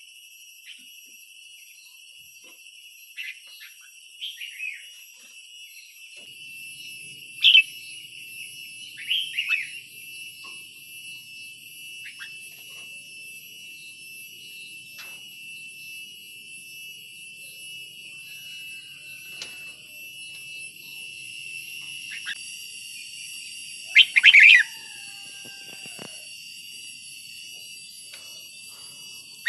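Red-whiskered bulbul giving short, bright song phrases several seconds apart, with two loud ones about a quarter of the way in and the loudest near the end, over a steady high-pitched drone.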